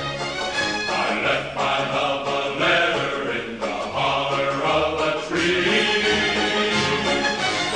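Background music: slow choral singing in sustained, chant-like chords that change about once a second.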